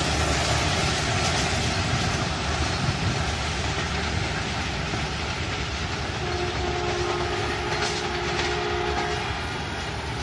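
Jaffer Express passenger coaches rolling away on the track, a steady rumble and rattle that slowly fades as the train recedes. Just past the middle, a distant train horn sounds one steady note for about three seconds.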